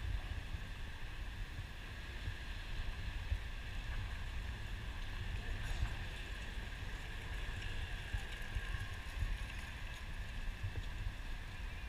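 Wind buffeting the microphone, a gusty low rumble, over a steady outdoor background hiss.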